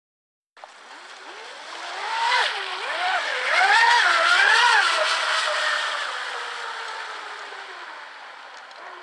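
HPR C5009 electric RC catamaran running fast on the water: the whine of its electric motor swings up and down in pitch with the throttle over the hiss of hull and spray. It starts suddenly about half a second in, is loudest a few seconds in, then fades as the boat runs off.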